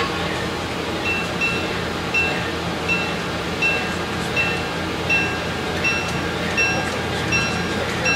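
Sound-equipped HO-scale Alco PA1 diesel model: a steady diesel engine hum with a locomotive bell ringing evenly, about once every three-quarters of a second from about a second in, as the train departs.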